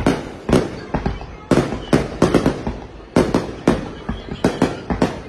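Aerial fireworks shells bursting overhead: a rapid, irregular string of sharp bangs, several a second, coming in clusters.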